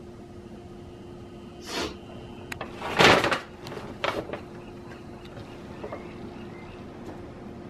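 Kittens playing on a soft pet carrier and a paper grocery bag: three short rustling, bumping noises about two, three and four seconds in, the middle one loudest, over a faint steady hum.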